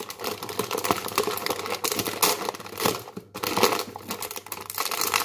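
Plastic bag of dried fusilli pasta crinkling under the hands, a dense continuous crackle with a brief pause about three seconds in.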